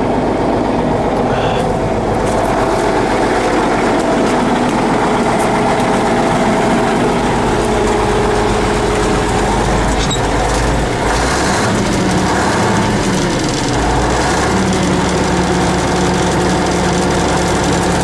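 A KhTZ T-150K tractor's YaMZ-236 V6 diesel engine running at idle, its low tone shifting a few times in the middle of the stretch.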